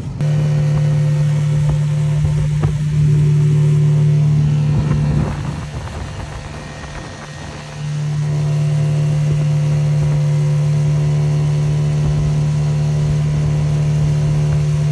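Outboard motor pushing a small aluminium boat along at a steady pitch. It comes up suddenly at the start, dips in loudness for a couple of seconds around the middle, then runs steady again.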